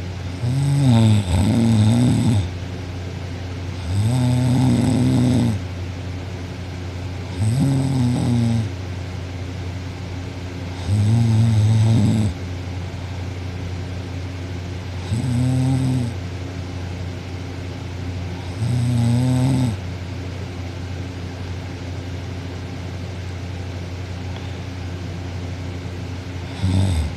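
A young woman asleep on her back, snoring: loud pitched snores of a second or two each, coming about every three to four seconds, with a longer pause of about seven seconds before the last one near the end.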